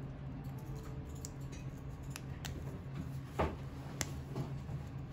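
Small clicks and handling sounds of a smartwatch's ridged band and metal buckle being worked on a wrist. The clicks are scattered, with a louder one about three and a half seconds in.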